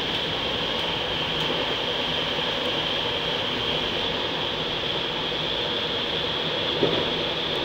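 Steady running noise of a Dutch NS Mat'64 electric multiple unit travelling through a rail tunnel, heard from on board the train, with a steady hiss-like band high in the sound. One short, louder knock about seven seconds in.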